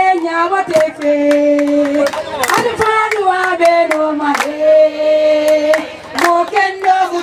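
Women singing together in long held notes that step up and down in pitch, with sharp hand claps between.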